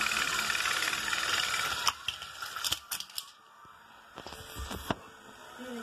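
Battery-powered toy train's motor and gears whirring steadily, cutting off suddenly about two seconds in; after that, a few sharp plastic clicks and clatters of the toy engines and track.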